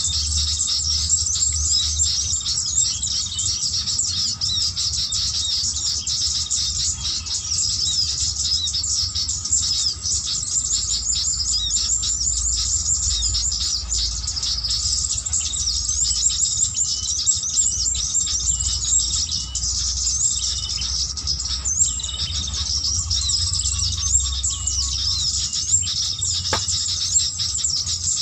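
Continuous dense, rapid high-pitched chirping and twittering of a mouth-blown bird-trapping lure whistle (pikat), imitating small birds to draw in sooty-headed bulbuls, with a low rumble underneath.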